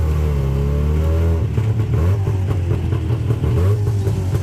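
Tuk-tuk engine running under way, heard from on board, its pitch rising and falling as it revs.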